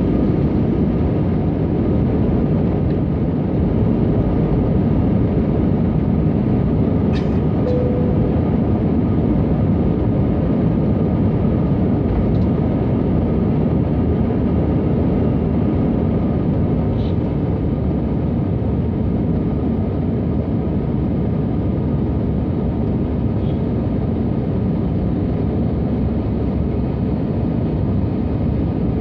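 Cabin noise of an Airbus A320 climbing out at takeoff power, heard from a seat over the wing. The engines and the rushing airflow make a loud, steady, deep noise, with faint steady engine tones above it.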